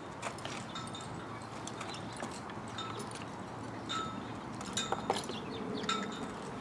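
A ridden horse's hooves striking the ground in irregular steps, with short ringing clinks among them, mostly in the latter half.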